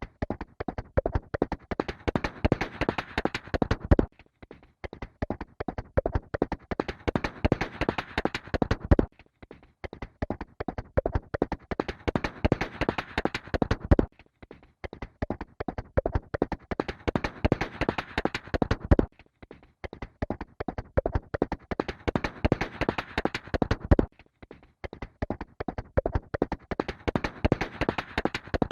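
Horse galloping: a fast, steady run of hoofbeats. The same stretch of about five seconds repeats over and over, each pass swelling louder in the middle before a short break.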